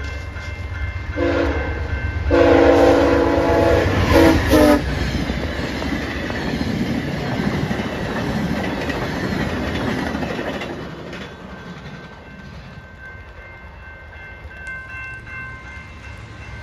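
A VIA Rail P42 diesel locomotive's horn sounds a short blast, then a long loud one, as the passenger train runs through the level crossing. The steady rumble and clatter of the passing cars follows and fades after about eleven seconds. The crossing's warning bell rings throughout.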